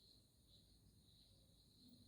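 Near silence: faint room tone with a thin, wavering high-pitched hum.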